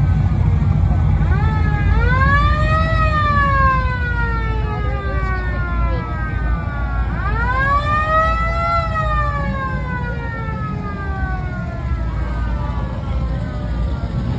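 A siren wailing twice, each time rising quickly in pitch and then falling slowly, over the low rumble of passing cars' engines.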